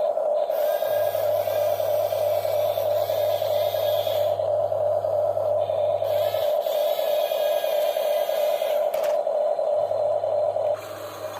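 Small electric motors of radio-controlled excavators whining steadily as the models work, cutting off near the end.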